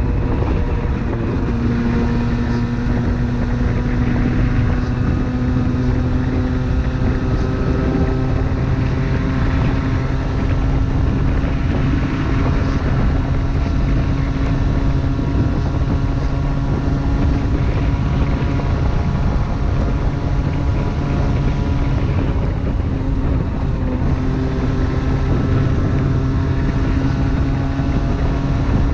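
Motorcycle engine running at a steady cruise, its tone climbing slowly, dipping briefly a little after twenty seconds, then climbing again, under constant wind rush on the microphone.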